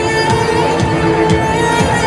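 Belly dance music: held melody notes over a steady drum beat.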